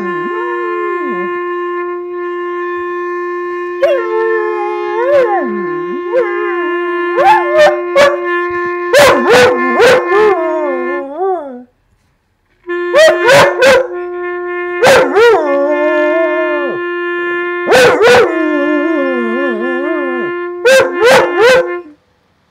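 A dog howling along to a clarinet that holds one long steady note. The howl slides up and down in pitch, with short sharp yips in loud clusters. The clarinet breaks off for about a second midway, then takes up the same note again.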